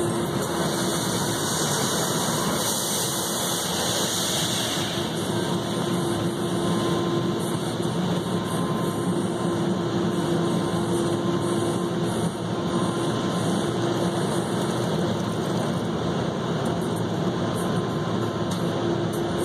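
Automatic car wash running, heard from inside the car's cabin: water and foam spraying against the car body and windshield as a steady rushing hiss over a constant mechanical hum. The hiss is strongest in the first few seconds.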